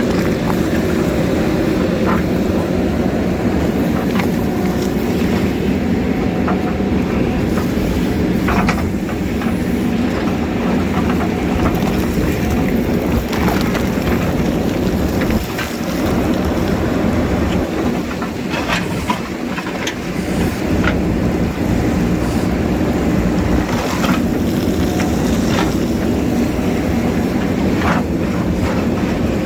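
JCB backhoe's diesel engine running steadily under load, with scattered knocks and scrapes of the bucket against rock. The engine sound dips briefly about halfway through.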